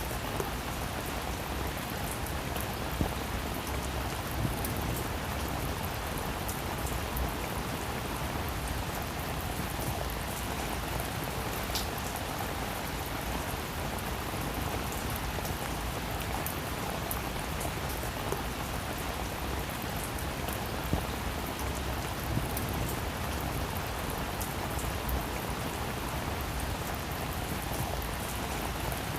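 Heavy rain falling steadily, a dense even hiss with scattered sharper drips and pattering.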